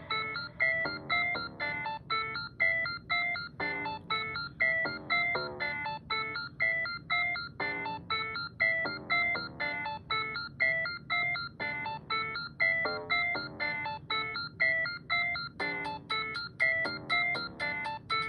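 Instrumental stretch of a rap track: a repeating bell-like synth melody of short, decaying notes, a few to the second, over a soft low bed. Near the end, fast high ticks like a hi-hat join in.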